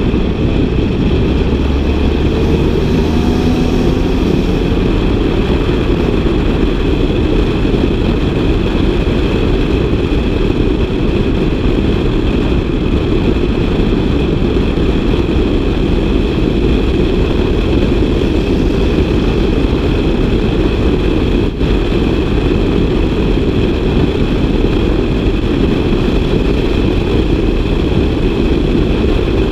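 Seat Altea with an eTuners aftermarket exhaust driving, its engine and exhaust giving a steady, loud drone. The engine note rises briefly in the first few seconds.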